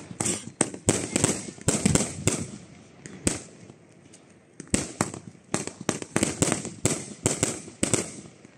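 Pyro Tsunami P5542 aerial fireworks firing a rapid string of sharp bangs, about three a second. A lull with a single bang comes about three seconds in, then a second run of bangs goes until near the end.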